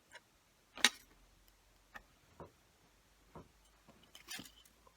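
Plastic model kit parts clicking and tapping as they are handled and fitted together: one sharp click about a second in, a few fainter ones after, and a short cluster near the end.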